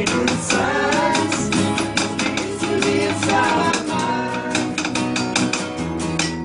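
Acoustic guitars strummed in a steady rhythm as a band plays an acoustic rock song.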